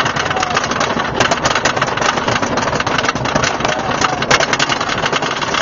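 Wooden roller coaster train climbing the chain lift hill: a rapid, even clatter from the lift chain and the anti-rollback dogs ratcheting, over the hum of the lift machinery.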